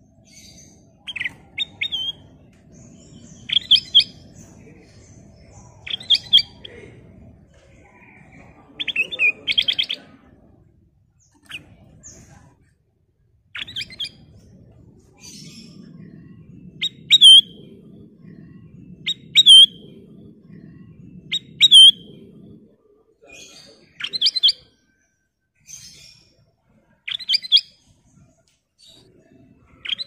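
Ruby-throated bulbul (kutilang emas) singing: short, bright chirping phrases, some ending in a falling note, repeated every two seconds or so. A faint low hum runs underneath for much of the time.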